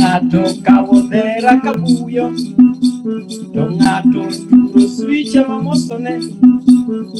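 Live acoustic music: a plucked string instrument repeats a short riff, with a rattle shaken about twice a second. A singing voice comes in at times.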